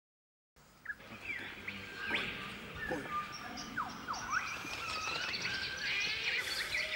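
Silence for about half a second, then a chorus of wild birds chirping and calling, with many short rising and falling whistles over a light background hiss.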